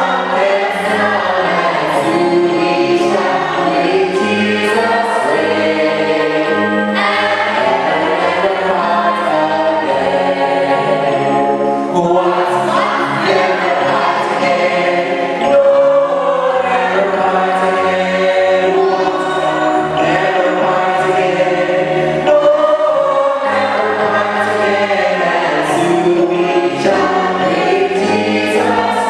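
A choir singing a gospel hymn with instrumental accompaniment.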